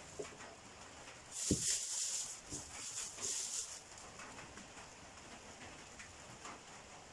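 Rustling of bunches of rambutan fruit and their stems being handled and gathered from a pile, in two short bursts about a second and three seconds in.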